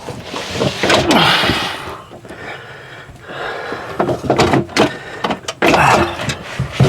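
Knocks, rattles and scraping from hands and tools working on the window regulator's bolts inside a minivan door.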